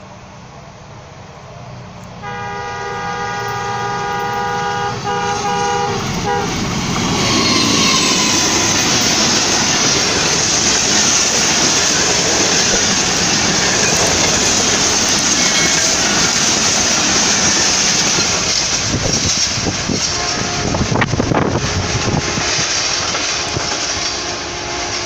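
Diesel-electric ZCU-20 locomotive sounds its horn, a chord held for about four seconds. Then the locomotive and its passenger coaches pass close by with loud, steady wheel-on-rail noise that eases a little near the end.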